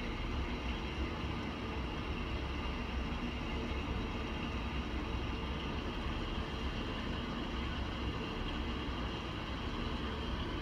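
Steady low rumble with a faint constant hum and hiss, even throughout with no distinct events.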